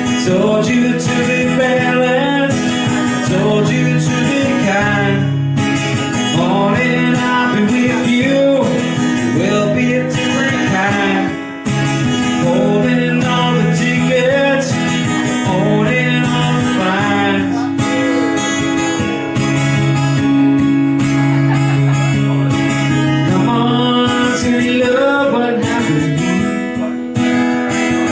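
Music: strummed acoustic guitar chords with a singing voice over them.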